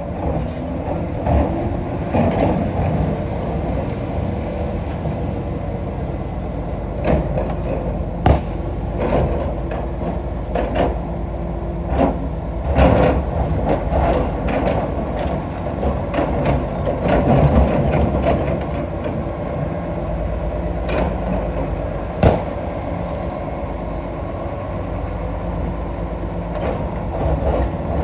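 Komatsu PC220-6 hydraulic excavator running steadily under load while digging rock, its engine droning throughout. Several sharp knocks of the bucket striking stone stand out above the drone.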